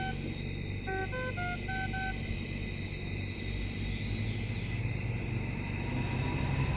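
Puritan Bennett 840 ventilator's alarm sounding a run of short electronic beeps in a little melody about a second in, over a steady low hum that grows slightly louder near the end.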